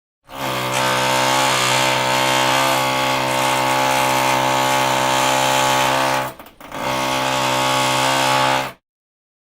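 Electric power drill motor running at a steady speed with a high whine, released for a split second about six seconds in, run again, then stopped near the end.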